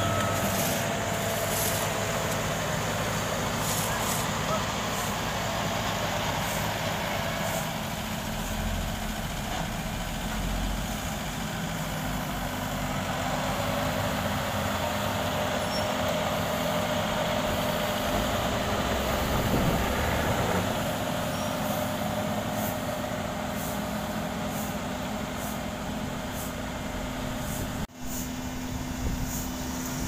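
Heavy diesel engines of a Sumitomo asphalt paver and a tandem roller running steadily while paving, with a brief drop near the end.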